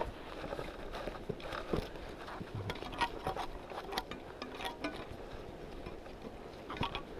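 Irregular clicks, knocks and scrapes of boots and trekking-pole tips on rock and crusted snow as hikers pick their way downhill.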